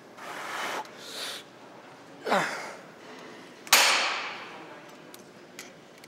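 A man breathing hard in forceful exhales during cable triceps exercises, with a short groan that falls in pitch. The loudest sound is a sudden sharp burst about midway that trails off over about a second.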